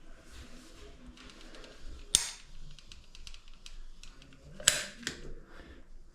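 Caulking gun applying silicone: two sharp snaps from the trigger and plunger, about two and a half seconds apart, with lighter clicks between.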